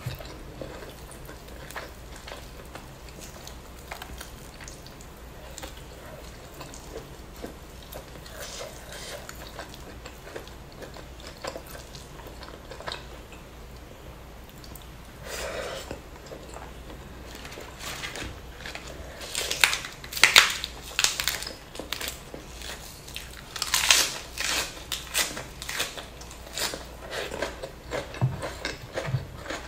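Close-miked chewing of spicy duck and rice eaten by hand: soft, wet mouth sounds, then sharper, louder crunchy bites and smacks about two-thirds of the way in.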